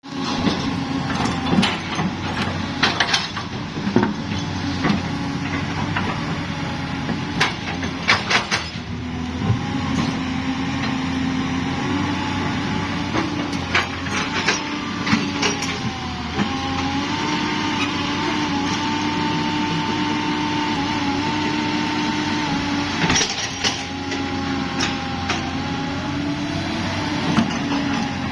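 Hyundai 220-9 crawler excavator running: a steady engine and hydraulic drone whose pitch wavers slightly, with scattered sharp knocks, most of them in the first nine seconds and a cluster again about 23 seconds in.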